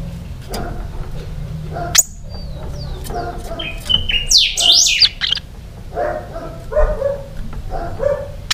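Caged picahueso singing: quick, high sweeping whistled notes in short bursts, mixed with lower chattering notes later on. A sharp click comes about two seconds in.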